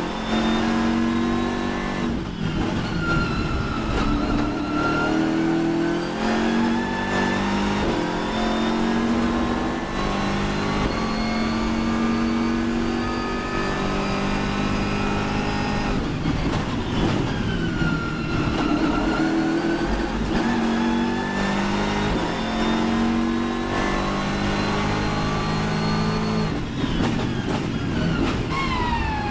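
BMW M6 GT3 race car's twin-turbo V8 at full throttle, heard from inside the cockpit: the engine note climbs through the gears with several upshifts. Near the end it drops through a quick series of downshifts under braking.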